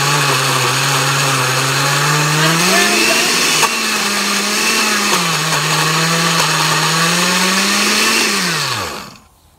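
Countertop blender motor running on high, grinding chunks of block cheese into shredded crumbs; its pitch rises a few seconds in, dips briefly and climbs again. Near the end it is switched off and the motor winds down to a stop.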